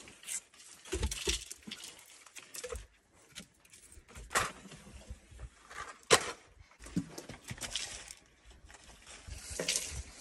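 Scattered handling sounds: a few dull knocks about a second in, then single sharp clicks and light rustling with quiet stretches between, as wood, kindling and small objects are handled at the oven.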